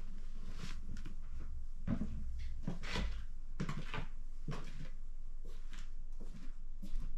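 A run of irregular light knocks and clattering rustles, over a steady low hum.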